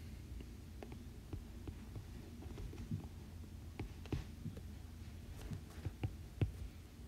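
Faint, irregular light taps of a stylus on a tablet's glass screen, over a low steady hum.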